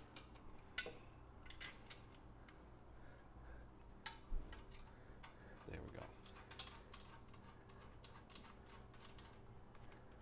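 Faint scattered clicks and light metallic taps as a steel aftermarket exhaust pipe is handled and shifted on its fittings to line it up on a motorcycle.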